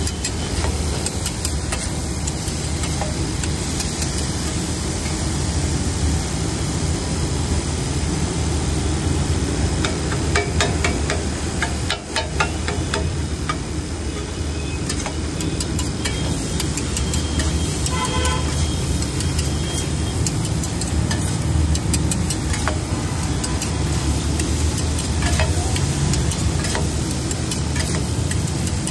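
Metal spatulas scraping and clacking on a large flat iron griddle as chow mein noodles and vegetables are tossed and stirred, over a steady rumble of street traffic. A short vehicle horn toots about eighteen seconds in.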